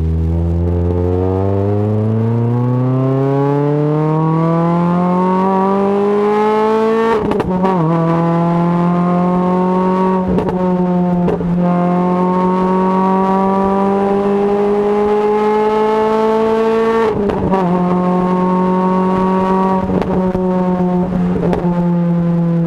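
Renault Clio RS 200 with a Supersprint aftermarket exhaust accelerating hard, the engine note climbing steadily through the revs, with upshifts that cut and drop the note about 7 seconds in and again about 17 seconds in.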